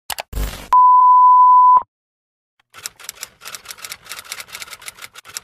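Editing sound effects: a click and a short low thump, then a loud steady beep tone lasting about a second. From about three seconds in comes a rapid run of typewriter key clacks as text is typed out.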